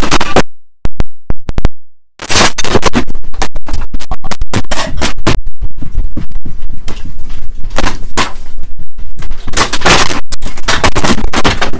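Room rattling and clattering as the house shakes in a strong earthquake: loud, dense, irregular knocking and crackling, with a brief dropout lasting over a second about half a second in.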